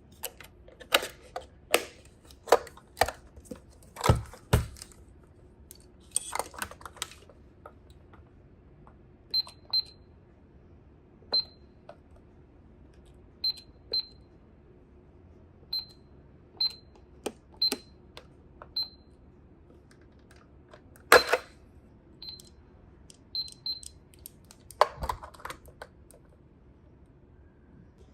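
Hard plastic toy washing machine being handled and operated: a string of irregular sharp clicks and knocks, many of them with a short high tone.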